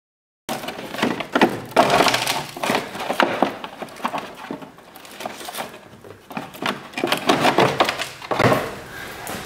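Plastic wheel-well liner crackling and scraping as it is flexed and pulled out of the wheel well, a dense run of irregular crackles and rustles that starts about half a second in.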